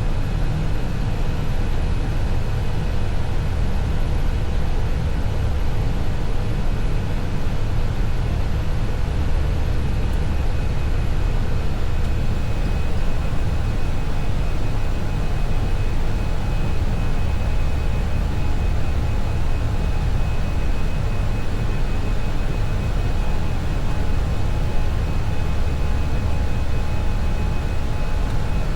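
Steady flight-deck noise of an Airbus A320 with CFM56-5B4 engines climbing at climb thrust after takeoff: a deep, even rumble of engines and airflow, with a few faint steady tones above it.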